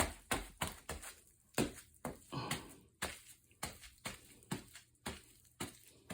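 Bubble wrap popping under foot: sharp single pops about three a second, with a short crinkle of the plastic a little after two seconds in.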